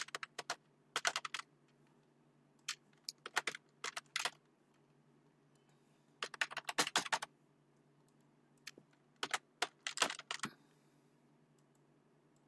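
Computer keyboard being typed on in several short bursts of keystrokes, with pauses of a second or two between bursts.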